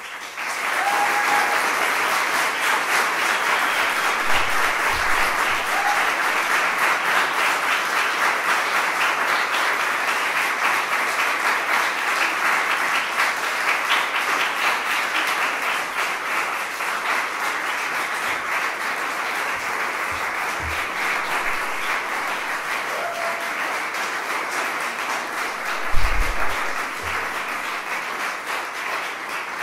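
Audience applauding steadily, easing off slightly toward the end. Near the end comes a single low thump.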